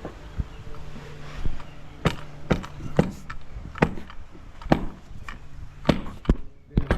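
Concrete stamp mats being tamped into fresh concrete: about ten sharp thumps at an uneven pace, roughly one a second, some coming in quick pairs.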